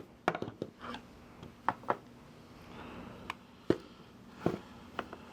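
Tripod leg parts being handled and fitted back together: scattered light clicks and taps, about eight of them, with short pauses between.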